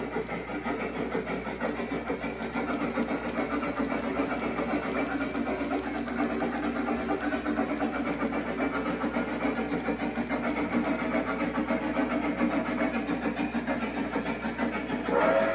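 Steam-locomotive chuffing from a RailPro digital sound system in a G-scale train's trailing car, running continuously as the model locomotive pulls slowly along the track. A steady pitched tone starts just before the end.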